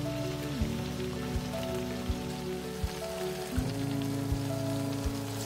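Beef bulgogi in its soy-based marinade boiling hard in a frying pan, a dense steady bubbling. Under it runs background music with held notes and a soft beat about every three-quarters of a second.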